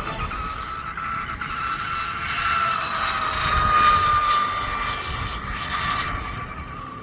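Scorpion Rigger RC boat running flat out, its motor and prop giving a high, steady screaming whine over the hiss of spray. It grows loudest about four seconds in as the boat passes, then drops slightly in pitch and fades.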